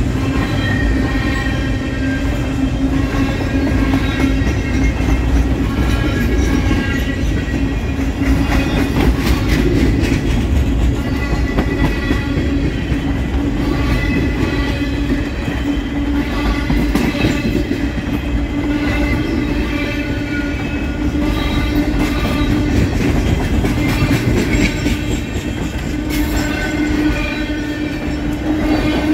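A train rolling past, its wheels clicking over the rail joints under a steady low drone.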